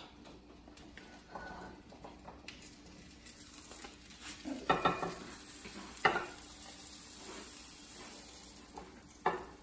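Oil sizzling faintly in a frying pan as a slotted spatula scrapes under a potato omelette and knocks against the pan a few times, loudest in the middle and once near the end.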